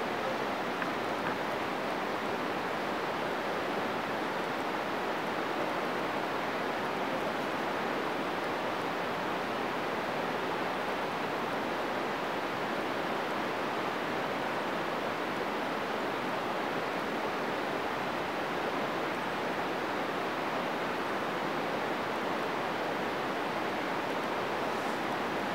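Steady rushing of flowing water, an even unbroken hiss that holds at one level throughout.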